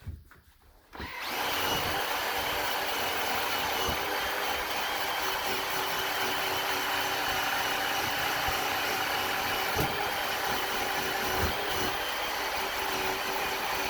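A small electric power tool starts about a second in and runs steadily at an even pitch, cutting old paint off a hinge.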